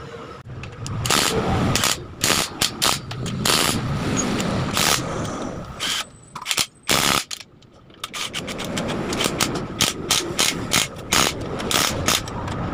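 Cordless impact wrench hammering in short rattling bursts with brief pauses, running nuts down on a motorcycle engine.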